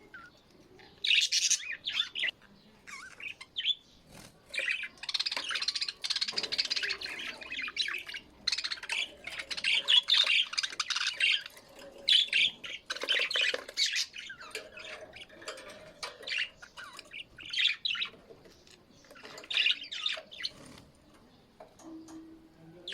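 A group of small birds chirping and squawking in busy, overlapping bursts with brief pauses between them. The chirping is thickest in the first half.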